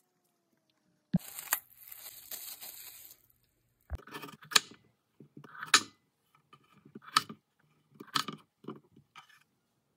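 Kitchen knife cutting a peeled raw potato on a wooden chopping board: a run of crisp, crunchy chops, about five louder strokes with softer ones between. Before the chopping, a scraping, rustling noise lasts about two seconds.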